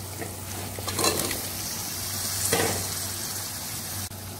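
Onion-tomato masala frying and sizzling in oil in a metal pan, stirred with a slotted spoon, as cubed raw potatoes go in. Louder rushes of sizzle come about one second and two and a half seconds in.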